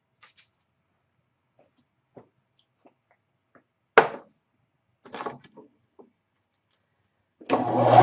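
Workshop handling sounds: a few light knocks, a sharp knock about halfway through and a short cluster of clatter, then near the end a power tool's motor starts and spins up to a steady whine.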